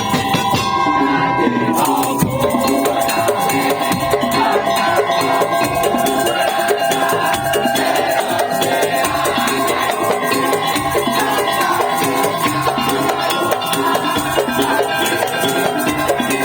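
Madurese tong-tong ensemble playing loud, fast, dense drumming with pitched tones sounding over the beat.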